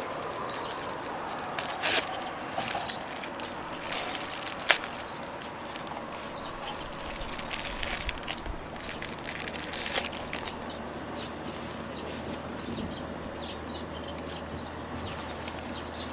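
Plastic film wrapper of a convenience-store onigiri crinkling and tearing as it is peeled off by hand, with a few sharp crackles, over a steady background hiss.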